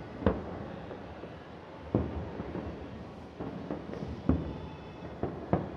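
Distant fireworks going off: about five separate sharp bangs at irregular intervals, two of them close together near the end, over a steady hiss of city background.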